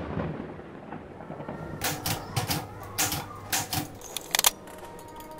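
The tail of a low boom dies away, then about two seconds in comes a quick, irregular series of sharp clicks and clacks that lasts roughly two and a half seconds.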